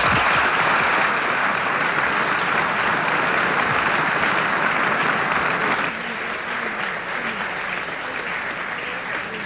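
A large audience applauding in dense, sustained applause. About six seconds in it drops a step in level, then keeps tapering off.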